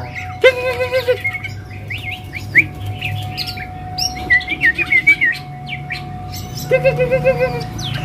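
Several caged songbirds singing at once: quick high chirps and whistled notes. A louder, wavering call comes about half a second in and again near the end. A steady hum runs underneath.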